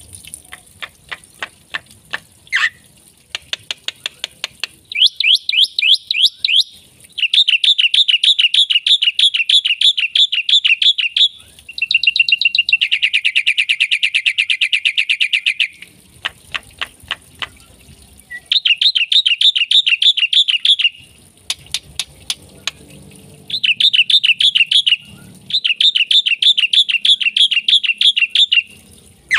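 Black-winged myna (jalak putih) singing in full voice: bouts of sharp, rapid clicks alternating with long, very fast trilled phrases of a few seconds each, the song packed with fill-in phrases.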